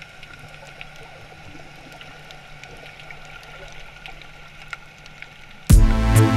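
Faint underwater ambience from a camera submerged in a kelp forest: an even hiss with scattered small clicks and a faint steady hum. Near the end, electronic music with a heavy beat starts suddenly and is much louder.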